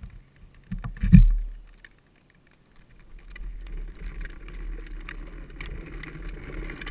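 A drift trike rolls on wet asphalt, with a steady rumbling hiss of wheels on the road and wind on the camera microphone. There is a loud thump about a second in, and the sound drops out briefly before the rolling noise returns.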